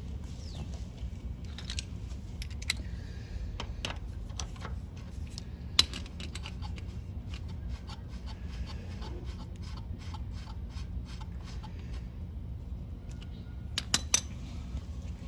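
Light metallic clicks and scraping as the brake cable adjuster nut on a 1968 Honda CT90's front drum brake hub is turned and worked off by hand, with sharper clicks about six seconds in and near the end, over a steady low rumble.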